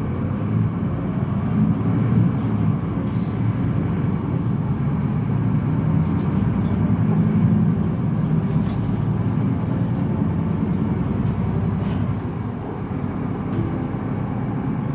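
Solaris Urbino 18 articulated bus running, with a steady low rumble from its DAF six-cylinder diesel and the road. A few faint, short high squeaks come through here and there.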